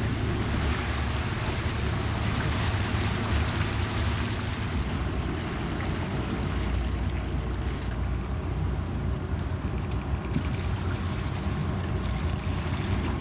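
A motorboat under way: its engine runs steadily while water rushes along the hull and wind buffets the microphone.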